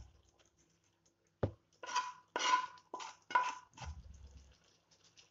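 Spatula scraping and knocking against a frying pan as fried cauliflower is tipped out into a pan of gravy. One sharp knock about a second and a half in, then a run of scraping strokes with a metallic ring.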